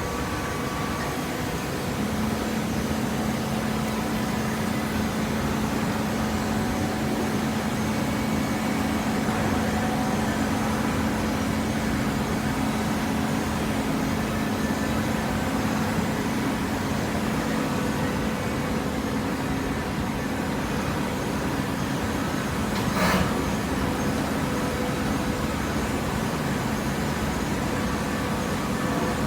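Automatic horizontal cardboard baler running, a steady hydraulic power-unit hum with machine noise, and one sharp clack about three quarters of the way through.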